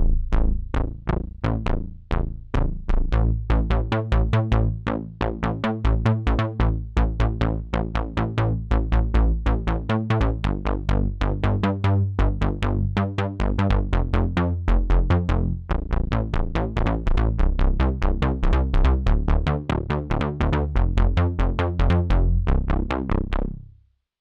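Arturia MiniFreak synthesizer playing a preset as a fast, rhythmic sequenced pattern of short plucked notes over a heavy bass, fading out near the end.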